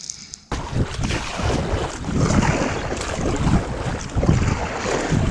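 Wind buffeting the microphone, with water rushing and lapping along an aluminium canoe as it is paddled. It is a steady rough rush with low gusts that cuts in suddenly about half a second in.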